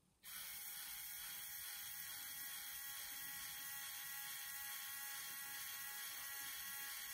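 Small Circuitcube electric motor and LEGO gearing of a model shunter running with a steady whine, starting about a quarter second in.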